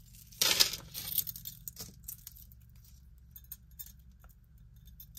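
Costume jewelry being handled: a metal chain and small pieces rustling and clinking, loudest about half a second in, then a few faint light clicks.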